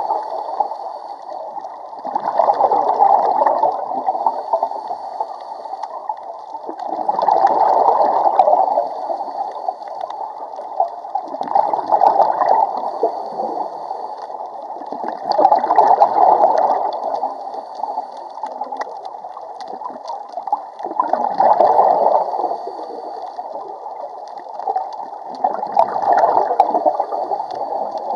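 Scuba diver's exhaled bubbles bubbling out of the regulator underwater, in regular bursts about every four to five seconds, one with each breath out.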